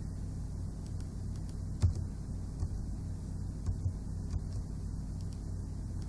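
Steady low electrical hum with a few light clicks, the loudest about two seconds in.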